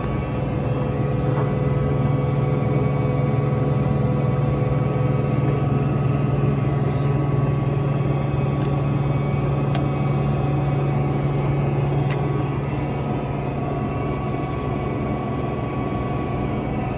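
LeBlond Regal servo-shift engine lathe running under power: a steady hum of motor and gearing with several steady tones. It is a little louder until about twelve seconds in, then eases slightly, with a few light clicks.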